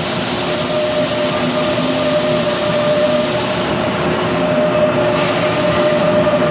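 Bridgeport milling machine's angle head running a long drill through a bronze guide bushing, drilling into 17-4 stainless steel: a steady mechanical whine with one constant tone. A high hiss runs alongside and stops about three and a half seconds in.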